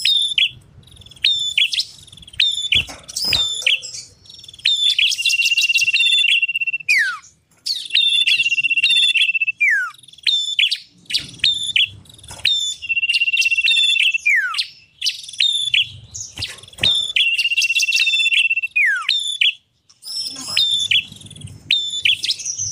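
Small songbirds singing on a bird-lure recording: quick sharp chip notes and short downward slides, broken every few seconds by a long, steady whistled note that ends in a falling slide.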